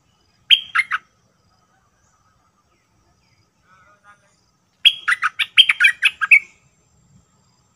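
A bulbul singing, a bird called dok taeng in Thai and merbah lekir in Malay. It gives a short phrase of quick notes about half a second in, then a longer run of rapid notes about five seconds in.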